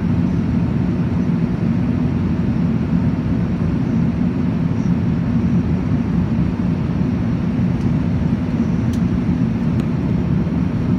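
Steady low rumble of an Airbus A380 cabin in flight, engine and airflow noise heard at a window seat over the wing during the descent to land.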